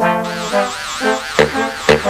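Cartoon background music with brass notes, joined just after the start by a high warbling electronic tone, with two sharp hits in the second half.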